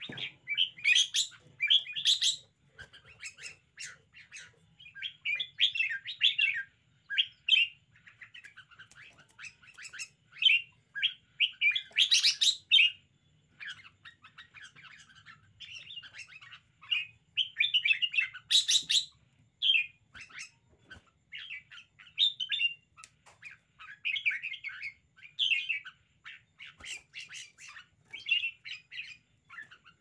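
Caged red-whiskered bulbul calling in short runs of quick chattering notes, phrase after phrase with brief gaps between them. A few notes are louder, around twelve and nineteen seconds in.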